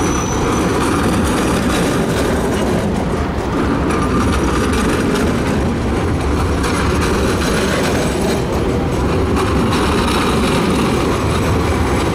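ABB Eurotram electric low-floor tram passing close by, a steady rumble of its wheels on the street-running rails.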